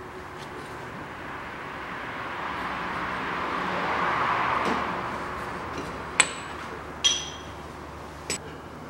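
A wrench clinking on the steel guide-pin bolts of a VAZ 2110's front brake caliper as it is tightened and taken off. A soft rushing noise swells and fades in the middle. Then come three sharp metal clinks, the one about seven seconds in ringing briefly.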